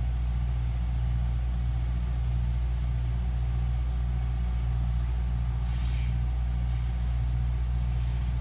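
A steady low mechanical hum, like a motor or engine running, holding constant throughout. A faint brief higher sound comes about six seconds in.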